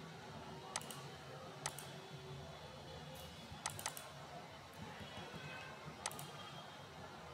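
Computer mouse clicking: five sharp clicks, two of them a quick double-click about four seconds in, over a faint steady hum.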